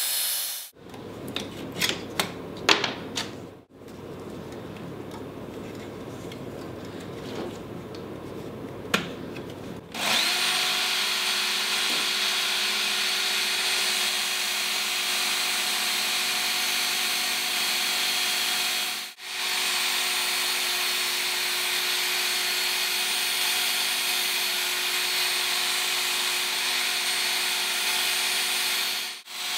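A few clicks and knocks from handling a Work Sharp electric belt sharpener. About ten seconds in, its motor and abrasive belt start running with a steady whine while a steel kitchen knife blade is held against the belt to smooth its edges, and the sound breaks off briefly twice.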